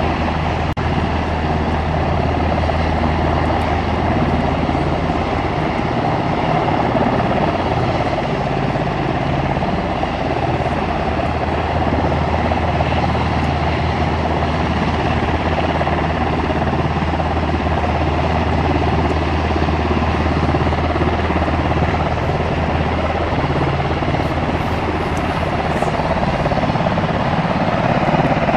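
UH-60 Black Hawk helicopters running on the ground, a loud steady drone with a higher whine above it that holds throughout.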